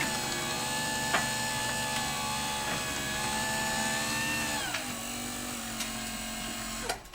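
Craftsman garage door opener converted to a side-mount jackshaft drive, its motor running with a steady whine as it moves the door. About five seconds in the pitch drops as the motor slows near its limit, and it stops with a click near the end.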